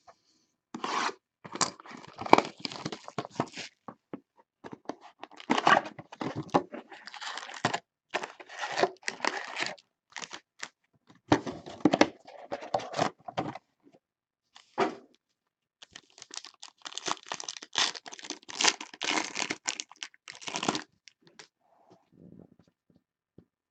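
Topps Tribute baseball card packaging being torn and crinkled open by hand, in repeated uneven bursts of tearing and rustling that die away about three seconds before the end.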